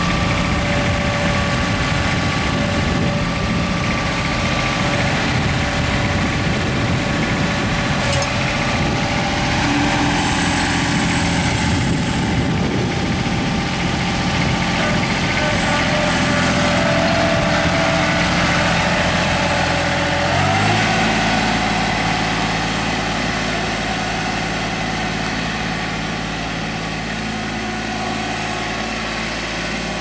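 Kubota B21 compact tractor-loader-backhoe's three-cylinder diesel engine running steadily as the tractor drives along. About two-thirds of the way in, the engine note shifts and settles at a new steady speed.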